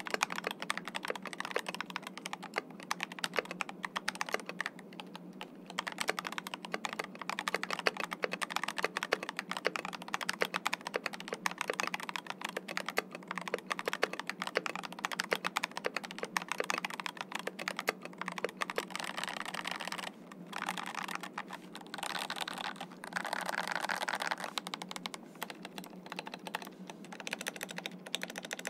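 Steady typing on an Epomaker TH96 mechanical keyboard with Epomaker Flamingo switches and a silicone-dampened case and plate: a continuous stream of fast keystroke clacks. The typing breaks off briefly about twenty seconds in.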